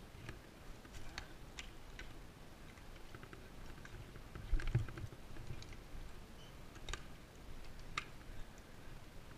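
Scattered sharp clicks and light knocks, with one heavier dull thump about four and a half seconds in.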